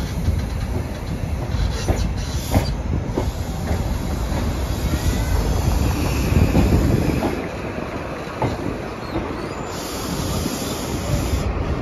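HST passenger train rolling slowly on the rails, heard from on board: a steady low rumble with irregular clicks of the wheels passing over rail joints.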